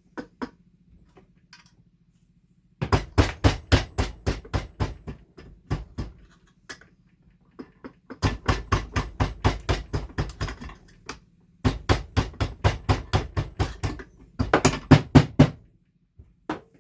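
Quick runs of hammer taps on a dirt bike's split engine crankcase, about five strikes a second in four bursts starting about three seconds in, working the case halves apart on a case splitter.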